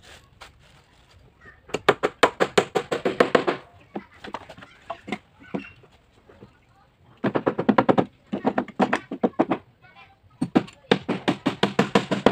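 Hammer driving nails into the meranti-wood planking of a jukung canoe hull, in three runs of quick, rapid blows.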